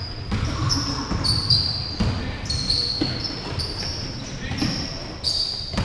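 Basketball game on an indoor court: sneakers squeaking on the floor in many short, high chirps, the ball bouncing, and players' voices.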